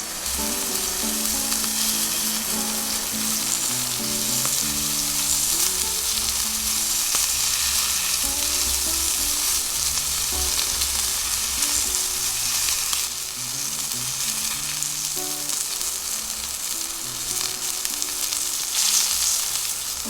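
Food sizzling and frying in a hot pan, a steady crackling hiss, with a slow melody playing underneath.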